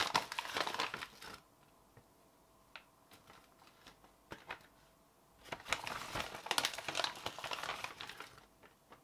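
Scoop scraping and rustling in a whey protein powder container to gather the last of the powder, in two bouts about five seconds apart, with a few light clicks between.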